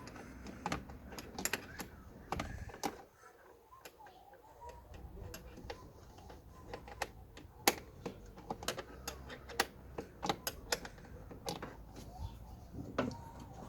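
Irregular clicks and light knocks of plastic panels, fasteners and hand tools being handled during reassembly of a car's blower fan housing, about two or three a second.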